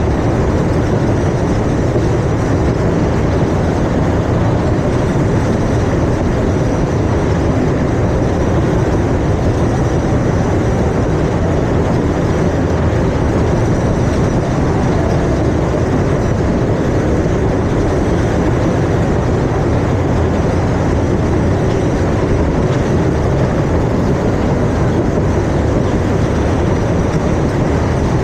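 Steady rumbling and rushing noise of a moving ride, heard from on board, with no break and a faint high whine over it.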